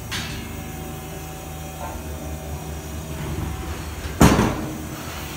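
Steel lid of a cooker built from a fuel oil tank closing with one loud metallic bang about four seconds in, over a steady low hum.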